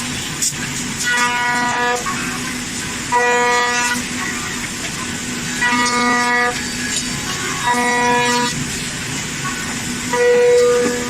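Five-axis CNC router carving a wooden chair backrest: a steady spindle hum with a tonal whine at the same pitch about five times, each lasting under a second, as the cutter bites into the wood on each pass.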